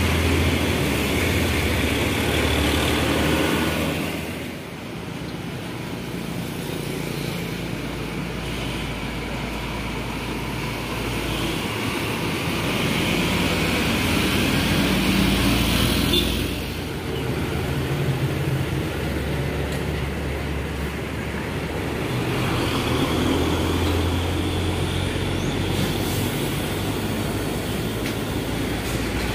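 Heavy diesel trucks and other road traffic passing close by: engines running and tyres on the road, loudest in the first few seconds as a truck goes past, with a sudden change in the sound about two-thirds of the way through.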